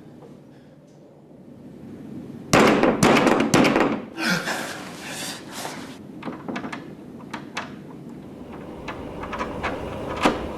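A quiet start, then a run of loud bangs and thuds lasting about a second and a half, followed by a hissing rustle and scattered light clicks and knocks.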